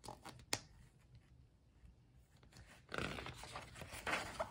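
Pages of a hardcover picture book being handled and turned: a couple of soft clicks early, then a paper rustle starting about three seconds in.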